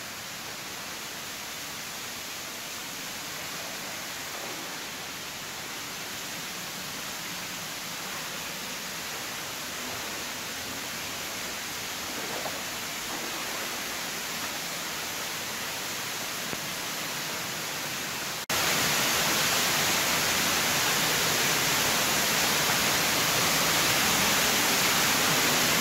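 Steady rush of running water in a flooded mine tunnel, an even hiss that grows slowly louder and then jumps suddenly louder about three-quarters of the way through.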